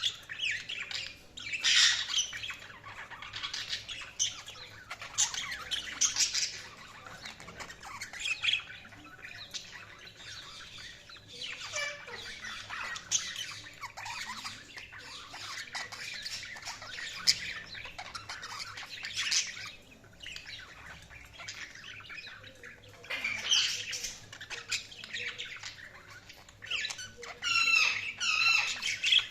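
Budgerigars chirping and warbling, mixed with squawks. The calls come in bursts of chatter every few seconds, and a rapid trill comes near the end.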